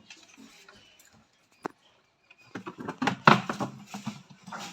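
Sounds from monkeys close by: one sharp click about a second and a half in, then a dense run of short knocks and scuffling noises over the last two seconds.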